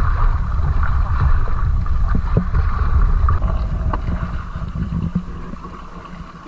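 Water rushing and splashing along a moving outrigger boat's hull and bamboo outrigger, with heavy wind rumble on the microphone and a few light knocks; it grows quieter over the last two seconds.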